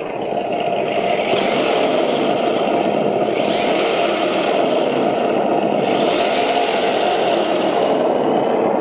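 GT Power engine sound simulator playing a simulated car engine through its speaker at full volume, revving in about three surges as throttle is given to the RC car. The engine sound follows the throttle closely but is a little off from it.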